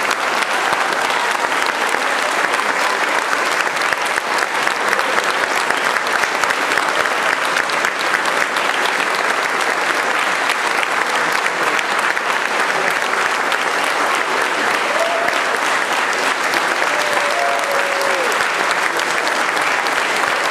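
Concert audience applauding steadily, a dense even clapping.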